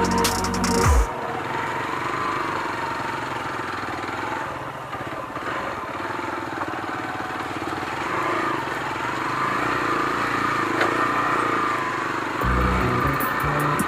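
Motorcycle engine running, its revs rising and falling unevenly. Background music plays for about the first second and again near the end.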